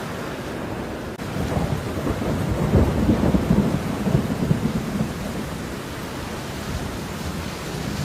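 Steady rain with a low rumble of thunder that builds about a second in, peaks near the middle, and fades away.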